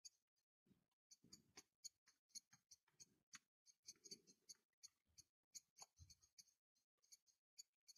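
Near silence: faint small clicks and scratches, several a second, with a few soft low knocks, from close handwork with a fine paintbrush on a die-cast toy car.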